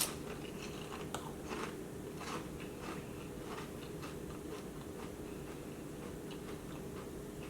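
Someone chewing a mouthful of potato chips: faint, irregular crunches that thin out as the chewing goes on, over a steady low hum.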